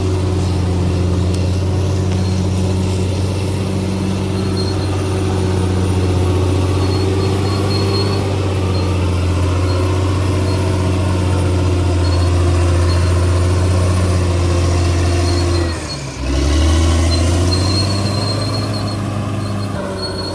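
CAT D6R XL bulldozer's diesel engine running steadily under load. About 16 seconds in it drops briefly, then picks back up with a rising pitch. A thin high squeal comes and goes over it.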